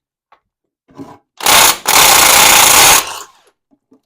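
Power tool running in two bursts, a short one and then a longer one of about a second, while loosening a fastener during a tractor oil change.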